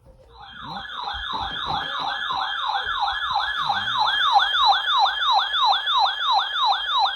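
A weather radio receiver's electronic alert siren, set off by a Required Weekly Test. It is a falling wail repeating about three times a second, growing louder over the first couple of seconds, and it cuts off suddenly at the end.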